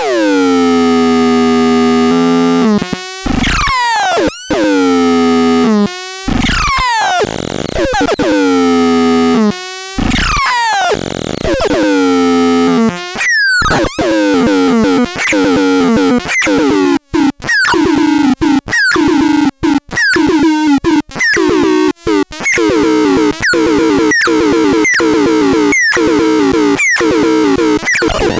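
Synthesizer playing buzzy tones rich in overtones. For about the first half there are held notes broken by swooping pitch glides up and down, then a fast stuttering run of short chopped notes.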